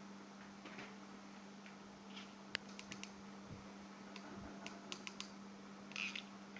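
Small scattered clicks and taps as hands work a hot glue gun against quilled paper rings on card, with a short rustle about six seconds in. A steady low hum runs underneath.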